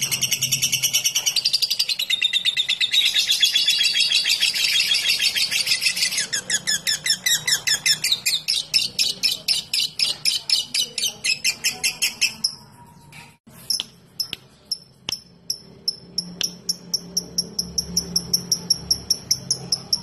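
Fischer's lovebird chattering in a long, fast, continuous trill ("ngekek"). About six seconds in the trill breaks into rapid separate notes. After a short pause with a click, it goes on as a slower run of sharp ticking notes ("ngetik").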